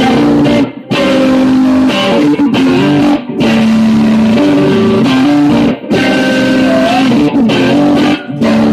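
Electric guitar strummed live, chords ringing loudly and briefly cut off about every two and a half seconds.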